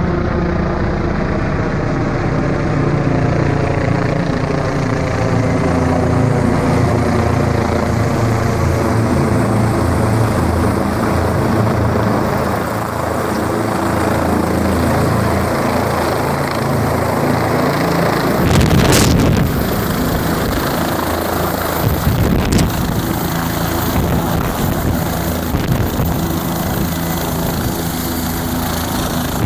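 Bell 407 helicopter's rotor beating steadily and loudly, with its single turboshaft engine running, as it flies low overhead and then runs with its rotor turning on the ground. A brief loud burst of noise comes just past halfway.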